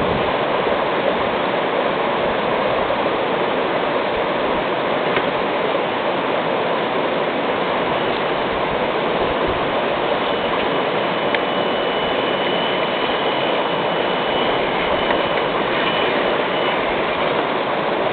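Steady rushing and splashing of a shallow stream flowing over rocks. A faint, thin high tone joins it in the second half, along with a few light clicks.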